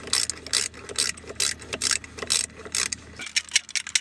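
Hand ratchet wrench clicking in repeated short back-strokes, about two or three a second, while track hardware is worked under a tracked vehicle. After about three seconds the clicks come faster and sharper.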